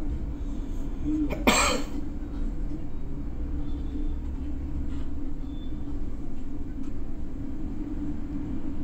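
A single short cough about a second and a half in, over the steady low rumble of a bus's engine and road noise inside the cab.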